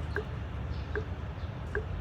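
Short pips at an even rhythm, about one every 0.8 seconds, over a low steady rumble. This is the sound presented as a tree drinking water.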